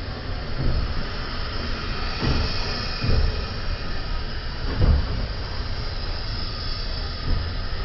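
Train running, heard from a carriage window: a steady rumble and rush of noise, with a few irregular low thumps from the wheels and carriage.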